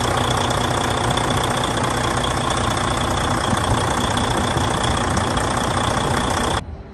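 Semi-truck diesel engine idling steadily with a faint high whine over it, cutting off suddenly near the end.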